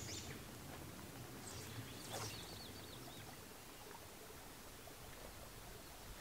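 Faint quiet outdoor ambience, with a small bird's short wavering call about two seconds in.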